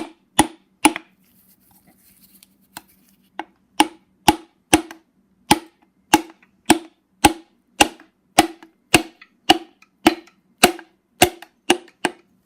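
Steady knocking, about two sharp taps a second with a short pause about a second in, as a piston held in a ring compressor is tapped down into a cylinder of a BMW N54 engine block so its rings pass into the bore.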